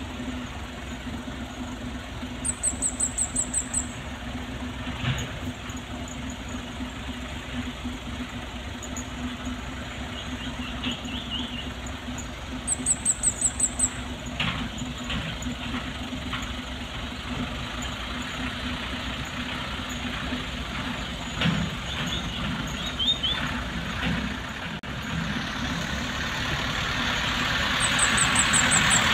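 Dump truck engine running steadily as the truck drives toward the listener, growing louder near the end. Three times a rapid train of sharp, high-pitched chirps sounds over it.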